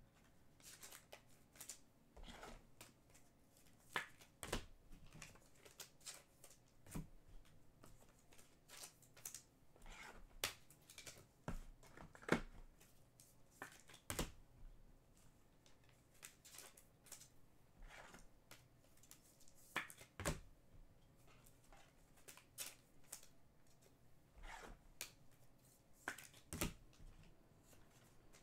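Trading cards being handled: quiet, irregular clicks and rustles as cards are slid, stacked and sorted, several a few seconds apart.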